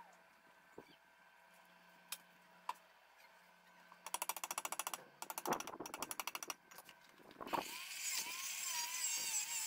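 A socket ratchet wrench clicking rapidly in two bursts as it is worked on a nut. Then, about two seconds before the end, a handheld rotary tool starts grinding the steel rod with a hiss and a high, wavering whine.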